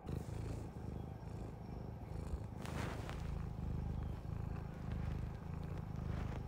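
Domestic cat purring steadily with a low, fast pulse, with a short burst of noise just before the middle.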